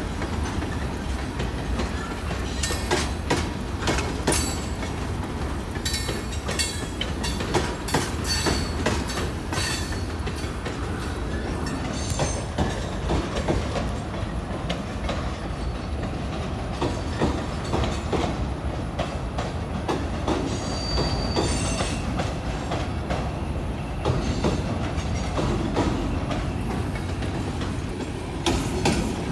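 Freight cars (tank cars and box cars) rolling past: a steady low rumble of steel wheels with repeated clacks as the trucks cross rail joints. A brief high wheel squeal comes about two-thirds of the way through.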